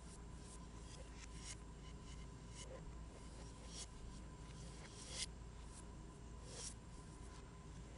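Faint ticks and scratches of a stylus tapping and drawing strokes on an iPad's glass screen, irregular, one to three a second, over a low steady hiss.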